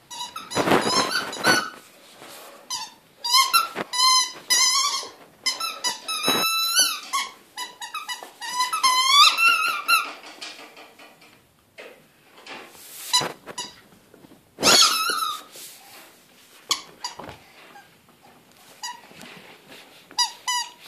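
Squeaky rubber ball squeaking over and over as a Jack Russell terrier chews and bites it, in quick runs of wavering squeaks with short pauses between, the runs thinning out in the second half.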